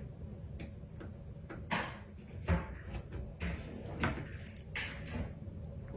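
Light clicks and small knocks, about half a dozen spread over a few seconds: small repair tools and phone parts being picked up, set down and worked on a bench during smartphone disassembly.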